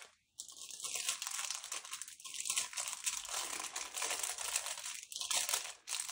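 Plastic packaging of bagged diamond-painting drills crinkling as it is handled and unwrapped, a continuous rustle with a brief break just after the start.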